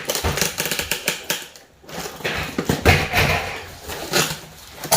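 Rustling of packaging with many small clicks and knocks as wrapped light-fixture parts are handled and searched through.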